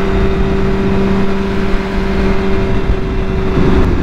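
Sport motorcycle engine running at a steady cruising speed under heavy wind rush on the microphone; near the end the engine note dips briefly as the throttle changes.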